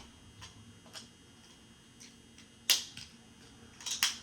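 Magnetic building tiles clicking together as they are stacked: a few faint clicks, one sharp click a little before three seconds in, and two more close together near the end.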